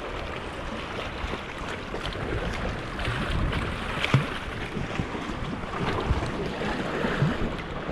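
Wind buffeting the microphone over small waves washing against a rocky shore, with a few light knocks and clicks.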